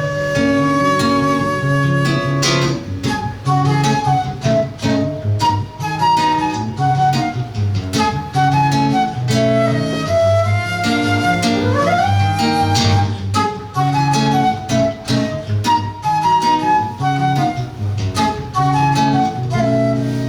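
A flute and a seven-string guitar playing live: the flute carries the melody over plucked guitar chords and a moving bass line. A quick rising slide comes about twelve seconds in.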